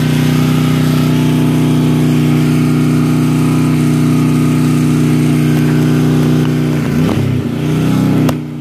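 Small gas engine of a DeWalt 3400 psi pressure washer running steadily at speed. About seven seconds in, its pitch dips and wavers briefly before settling.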